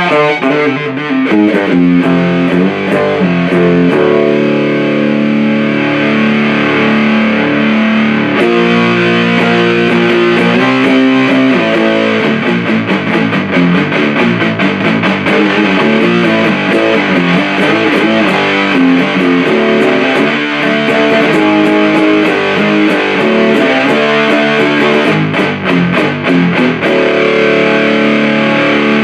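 Electric guitar played through a 77 Fuzz Blender, a Big Muff–style op-amp fuzz pedal: heavy fuzz-distorted riffing with sustained notes and chords that change every second or two.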